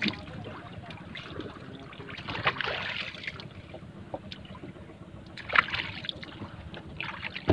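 Water lapping and splashing against a small fishing boat's hull, with scattered knocks and two brief louder splashes.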